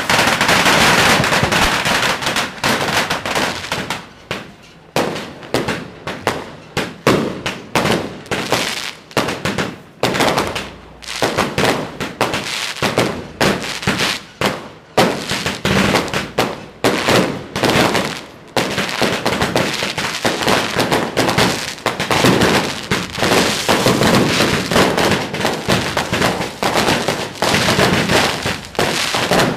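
Yanshui beehive fireworks: a rack of bottle rockets and firecrackers going off in a dense barrage. It starts as a steady crackle, then breaks into rapid, irregular clusters of sharp bangs, thickening again about two-thirds of the way through.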